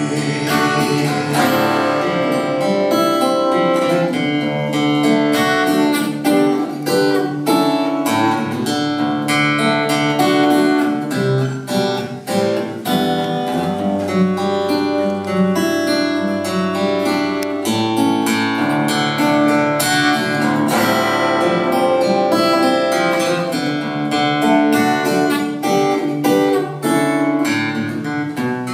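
Takamine cutaway steel-string acoustic guitar played solo in an instrumental passage: a busy run of picked notes over strummed chords, with no singing.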